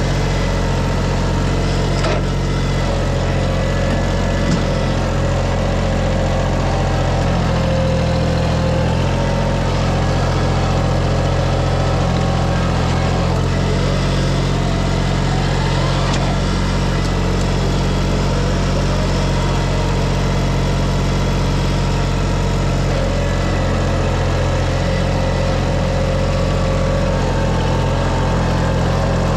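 An engine running steadily at a constant speed, with slight shifts in pitch about a third of the way in and again near the end.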